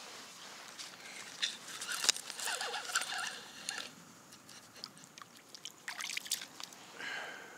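Water sloshing and splashing in an ice-fishing hole as a zander is hauled up through it, with a run of sharp clicks and taps in the middle and a few more near the end as the fish comes out onto the ice.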